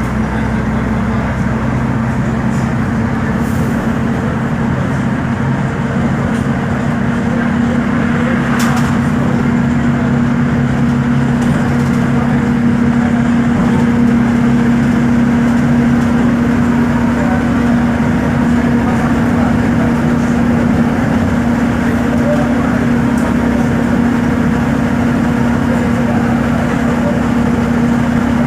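Volkswagen 17.230 OD bus's diesel engine running steadily, a constant hum at an even pitch; a lower layer of the hum drops away about halfway through.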